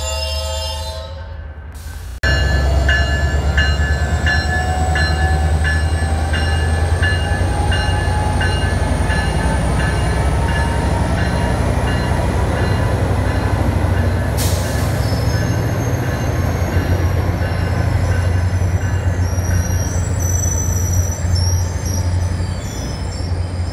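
Background music ends about two seconds in. Then a Caltrain diesel-electric locomotive and its bilevel passenger cars pull out on departure: a deep engine rumble, a bell ringing about twice a second for the first several seconds, and a whine that rises slowly as the train gathers speed. A brief sharp burst of noise comes about halfway through, and wheels squeal near the end.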